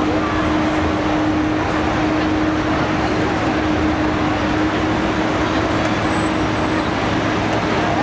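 Busy city street ambience: steady traffic noise with a continuous hum, and the voices of passers-by mixed in.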